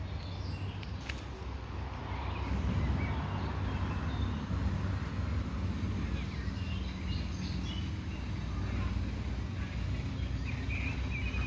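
Steady low background rumble with a few faint, short chirps over it.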